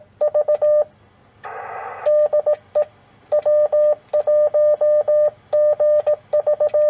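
Morse code sent on a Yaesu transceiver: a steady mid-pitched sidetone keyed in dots and dashes in several groups, with a light click at many of the strokes. A short burst of receiver hiss comes in a gap about one and a half seconds in.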